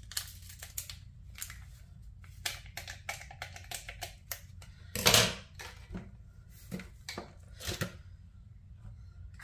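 Crinkling and rustling of an instant coffee packet as it is handled and emptied into a plastic blender cup: a run of short, irregular crackles, the loudest about five seconds in.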